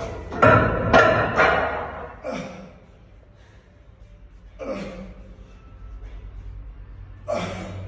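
Men's short, loud yells and grunts of effort during a very heavy machine squat: several in quick succession in the first two seconds, then single yells about five and seven and a half seconds in.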